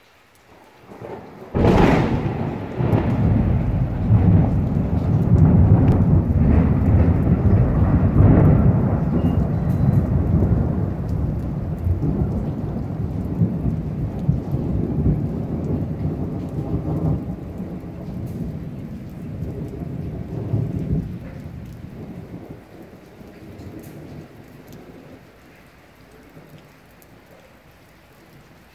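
Thunder: a sudden sharp crack about two seconds in, then a long low rumble that rolls on and slowly fades over some twenty seconds, with rain falling underneath.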